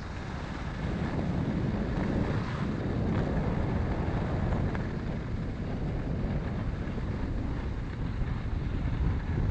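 Wind buffeting a GoPro Hero 6 action camera's microphone as a steady, fluttering low rumble, over the hiss of skis sliding on snow.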